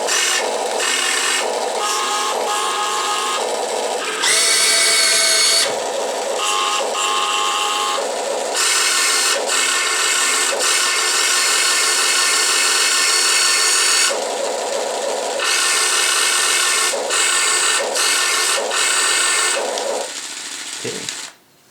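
Huina 1580 RC excavator's onboard sound unit playing a simulated engine through its small speaker, with the whine of the model's electric gear motors cutting in and out in stretches of a few seconds. The sound dies away near the end.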